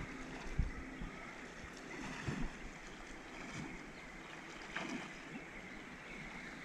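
River water lapping and splashing right at the microphone while drifting in a current, with a few soft, low knocks of water slapping against the camera.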